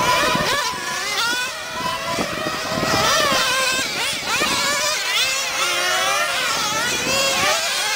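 Several 1/10 scale nitro RC cars' small glow-fuel engines running at high revs. Their overlapping pitches keep rising and falling as the cars accelerate and lift off around the track.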